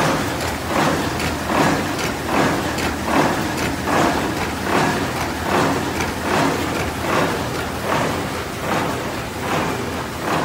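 G460B paper assembling (collating) machine running, with a regular swish and clatter repeating a little more than once a second as it cycles.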